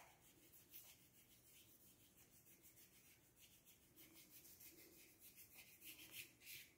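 Faint swishing of a flat paintbrush stroked back and forth across paper, short strokes repeating a few times a second and a little louder near the end.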